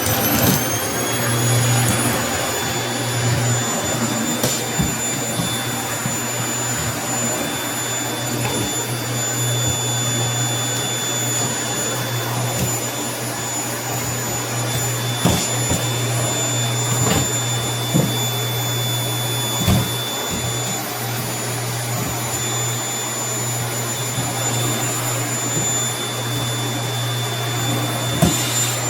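Vacuum cleaner running, its motor whine climbing to full speed in the first second or so and then holding steady. Occasional short knocks are heard as it works the floor.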